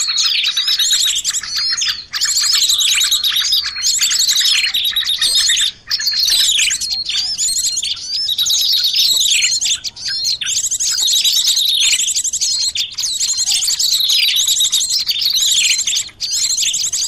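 Bird-lure recording of small songbird calls: high, fast chirping trills and downward-sweeping whistled notes repeating every second or two, with brief sharp dropouts every few seconds where the loop is cut.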